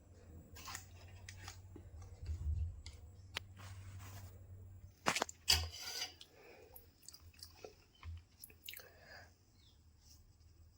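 Someone chewing close to the microphone, with scattered small clicks and rubs; the loudest, crunchier bites come about five to six seconds in.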